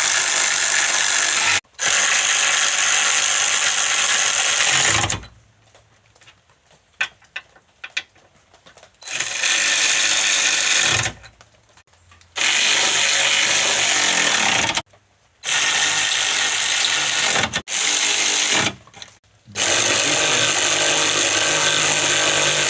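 A cordless power tool running the 14 mm strut brace nuts and bolts down, in about seven runs of one to three seconds each with short pauses and small clicks between them.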